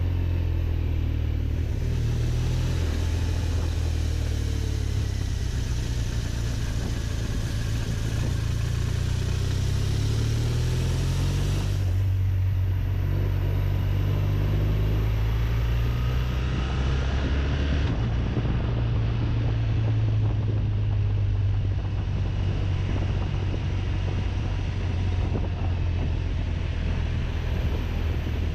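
BMW RT touring motorcycle's boxer twin engine running at steady low revs while riding. The engine note shifts a little as the throttle changes, over a steady rush of wind noise.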